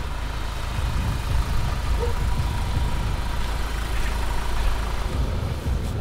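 Pickup truck engine idling with a steady low rumble.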